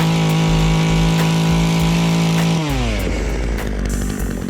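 Petrol chainsaw held at full throttle with a steady high engine note. About two and a half seconds in, the throttle is released and the pitch falls off quickly into a rough, lower running.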